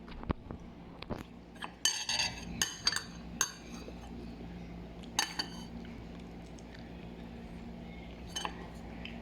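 Metal utensils clinking against dishes, with a quick cluster of ringing clinks in the first few seconds and then two single clinks later on. A steady low hum runs underneath.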